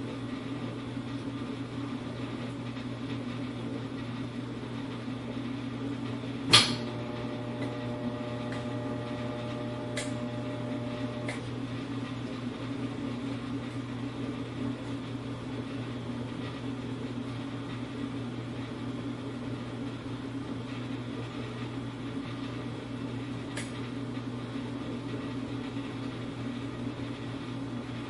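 Dishwasher running with a steady low hum. About six seconds in, a sharp knock rings on for a few seconds, and a few fainter clicks follow.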